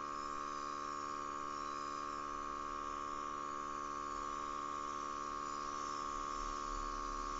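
Small airbrush compressor running with a steady hum, under the hiss of a gravity-feed airbrush spraying a fine mist of paint.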